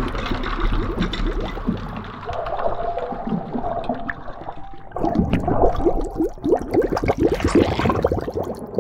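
Underwater bubbling and gurgling: a dense stream of bubble sounds that eases off about two seconds in and picks up again about five seconds in.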